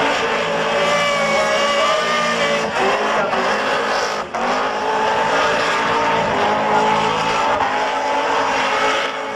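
Burnout car's engine held at high revs while its rear tyres spin in thick smoke. The engine note wavers and dips briefly about four seconds in, then climbs back.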